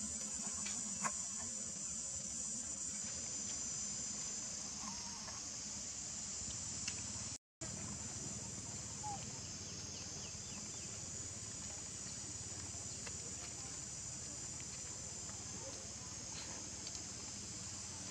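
Steady high-pitched chorus of insects chirring, with a brief cut to silence about halfway through.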